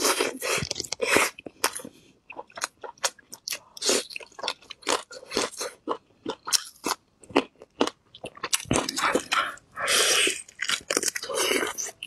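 Close-miked chewing of bone-in braised beef ribs: a steady, irregular run of short sharp crunches, with a few longer wet bursts near the end.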